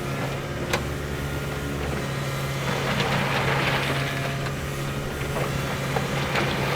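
Diesel engine of a tracked excavator running steadily, with a sharp click just under a second in.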